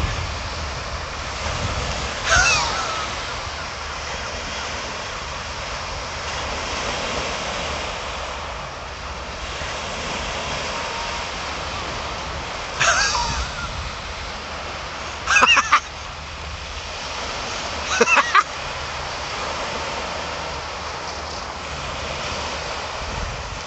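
Small waves breaking and washing over a shingle beach, with wind rumbling on the microphone. Short shrill animal calls cut through: one about two seconds in, another just past the middle, then a pair and a quick run of about three in the second half.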